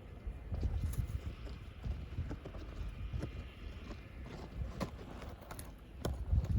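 Irregular knocks and clicks, a few close together near the end, over a low wind rumble on the microphone.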